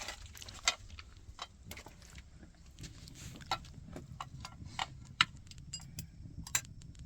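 A run of irregular sharp clicks and light knocks, about two a second, over a steady low rumble.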